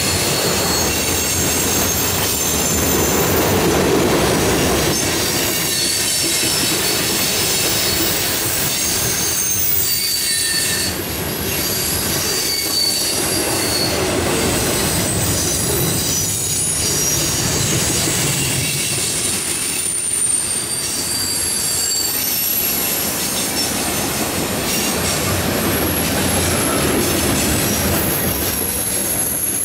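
Freight cars of a mixed freight train rolling past: a steady rumble and rattle of steel wheels on the rail, with thin, high-pitched wheel squeal that comes and goes.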